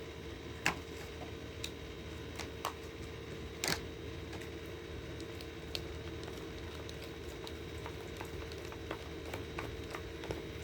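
Spoon stirring mashed avocado and gelatin in a bowl: soft squishy mixing with scattered sharp clicks of the spoon against the bowl, over a steady low hum.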